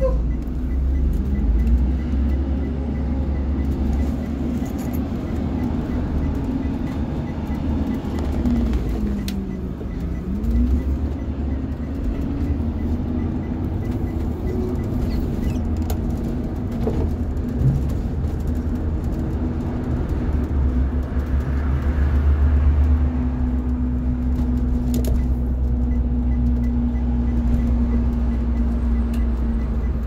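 Cabin sound of a 40-foot Blue Bird RE school bus under way: steady low rumble of its rear-mounted CNG engine with road noise. The engine's note falls and then climbs again about ten seconds in, then holds steady.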